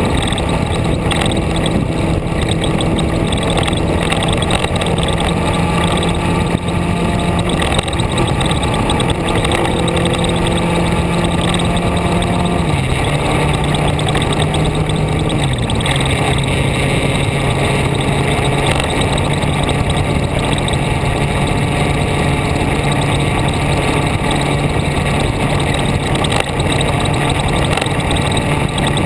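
Vehicle engine running under way, with steady wind and road noise. The engine note steps down in pitch about twelve seconds in and again about sixteen seconds in, then holds steady.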